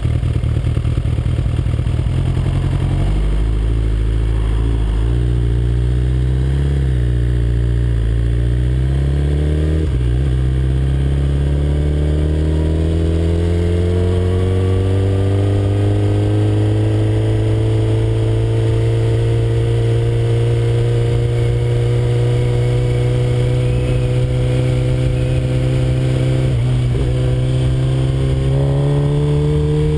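2007 Suzuki GSX-R 1100 cc inline-four sportbike engine ticking over, then pulling away about three seconds in. Its note rises steadily with gear changes about ten seconds in and again near the end.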